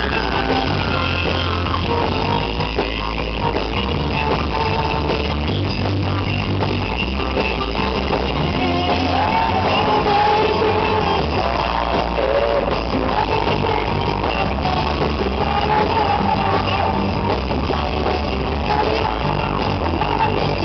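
Live rock band playing loud: a male lead singer over electric guitars, bass and drums.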